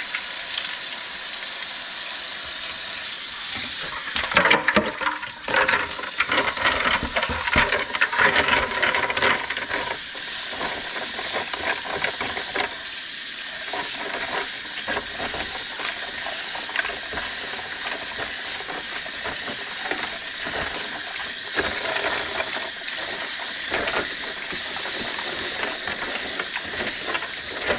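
Kitchen faucet running a steady stream of cold water into a bowl of blanched broccoli to chill it quickly, with ice clattering and rattling into the bowl between about 4 and 10 seconds in, and hands swishing the florets through the water.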